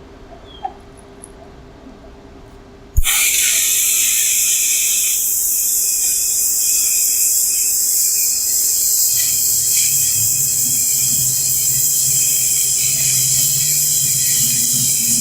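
AHP AlphaTIG 200x TIG welding arc striking suddenly about three seconds in, then burning with a steady, high-pitched hiss as a bead is run; a low hum joins about two-thirds of the way through.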